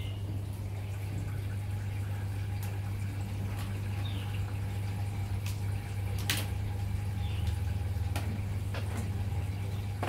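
Samsung front-loading washing machine filling with water just after its cycle is started, with a steady low hum and water running in. A few sharp clicks come through, the loudest about six seconds in.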